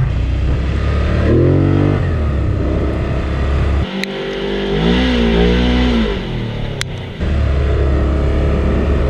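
Polaris off-road vehicle's engine running on the trail, revving up and down several times. Two sharp knocks can be heard, around four and seven seconds in.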